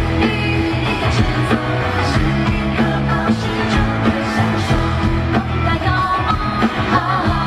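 Live concert audio of a woman singing a pop-rock song with full band accompaniment and a steady bass line.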